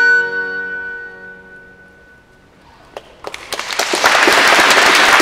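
The final chord of a small early-music consort, recorder and bowed viols, dies away over about two seconds. After a brief quiet, scattered claps start about three seconds in and quickly swell into full audience applause.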